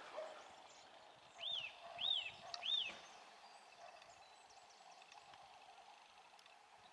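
A songbird calling three loud whistled notes about half a second apart, each rising and then falling in pitch. Fainter high chirps follow.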